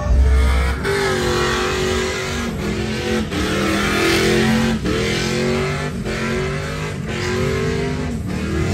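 Pickup truck engine revving hard during a burnout and donuts, its pitch rising and falling again and again, with short drops in throttle about once a second. A deep low rumble fills the first second.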